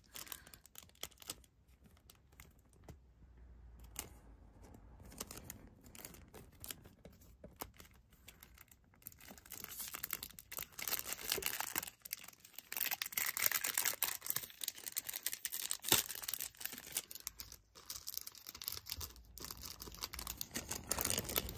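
Sticker pack's packaging being opened by hand: rustling, crinkling and tearing, sparse at first and busier and louder over the second half.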